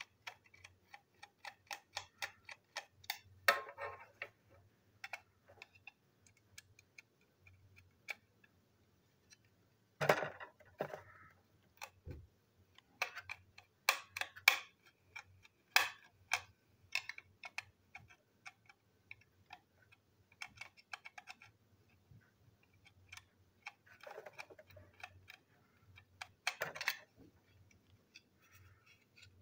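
Small plastic clicks, taps and scrapes from handling a toy locomotive's plastic body shell and chassis, with a few louder clatters scattered through.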